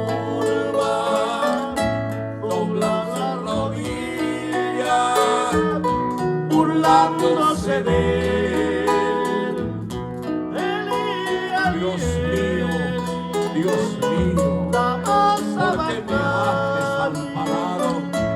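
Christian praise song played on guitar over a steady bass line, the melody moving in short phrases.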